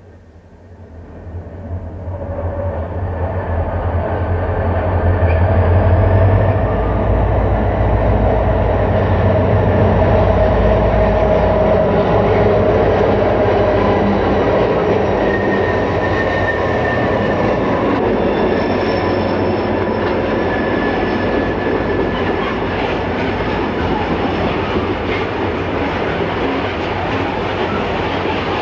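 Diesel locomotives hauling a loaded coal train pass close by. Their engine rumble grows louder over the first few seconds and is strongest for several seconds, then gives way to the steady rolling rumble and clatter of loaded coal hoppers going by.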